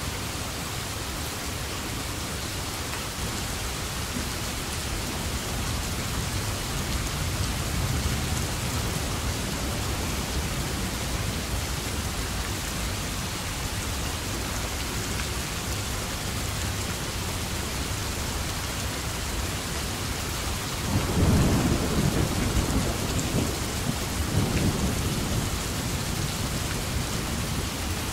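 Steady rain with low rolls of thunder. A rumble swells suddenly a little past two-thirds of the way through, then rolls again a few seconds later.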